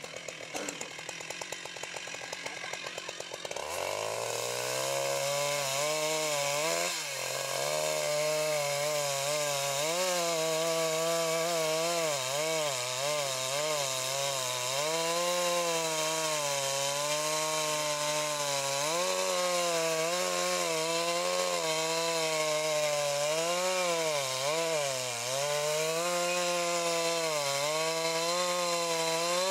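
Large Stihl MS 880 two-stroke chainsaw idling, then revved up about four seconds in and cutting into the trunk of a big tree being felled. The engine pitch wavers up and down as the chain bogs under load and recovers.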